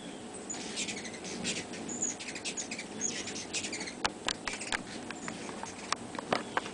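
Hummingbirds giving many rapid, high, squeaky chip calls and twitters, short chirps following one another in quick succession with a few sharper clicks among them.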